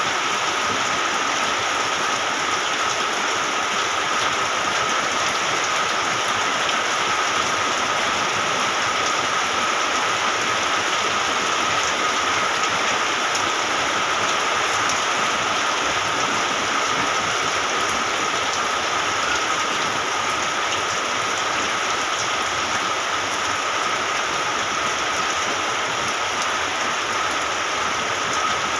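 Rain falling steadily as an even hiss, with a thin, steady high tone running underneath.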